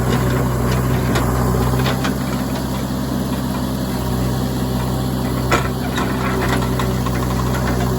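Heavy diesel engine running steadily at a low, even speed, with a single sharp knock about five and a half seconds in.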